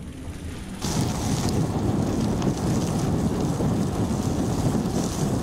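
Wind buffeting the microphone and tyre rumble from a mountain bike rolling along the trail, a loud steady rush that jumps up suddenly about a second in.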